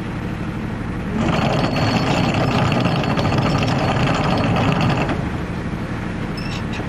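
Boat's anchor chain rattling quickly through the windlass for about four seconds, starting about a second in, over the steady hum of the boat's engine.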